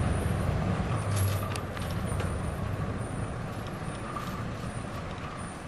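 Unladen timber truck driving away on a snowy road, its diesel engine rumble fading as it goes, with a few faint clicks about a second in.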